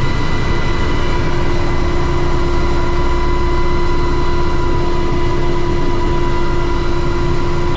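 Cabin noise of an MH-60 Jayhawk helicopter with twin turboshaft engines in flight, heard from inside the cockpit: a loud, steady drone with several steady whining tones over it.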